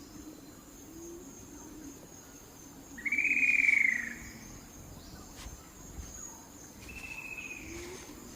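A bird calling twice, about four seconds apart, each a short whistled note that arches up and falls away, the first louder and longer. A faint, steady forest background lies under the calls.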